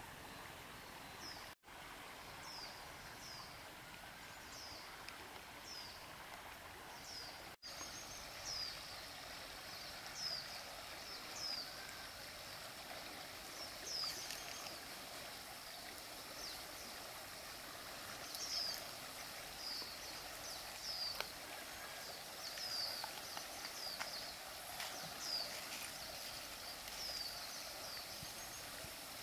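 Riverside ambience: a steady hiss of flowing water, over which a small bird repeats a short, high, falling chirp about once a second.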